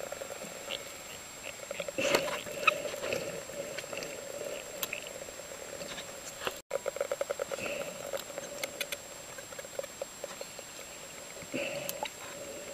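Dolphins calling underwater: rapid trains of clicks, buzzing pulsed calls and short squeaky whistles, coming and going in several bouts.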